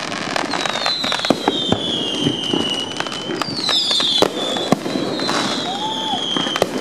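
Aerial fireworks display: repeated bangs of shells bursting and crackling, with long high whistles that slide slowly down in pitch.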